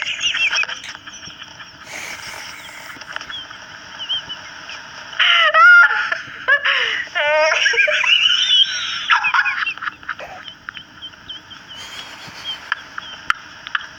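A person laughing hard in high-pitched, wheezing bursts, the loudest stretch in the middle.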